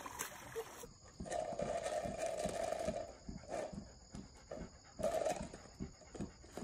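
A dog giving a drawn-out whining call of about two seconds, then two shorter ones.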